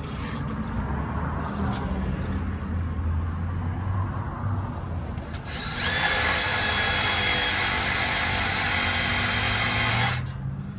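Power drill driving a self-drilling Tek screw to bore a pilot hole. After a low hum in the first half, it runs loud and steady at high speed for about four seconds from near the middle, then stops abruptly.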